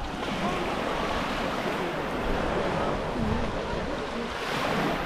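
Small sea waves lapping and washing up over sand and pebbles at the shoreline, with the wash swelling louder shortly before the end.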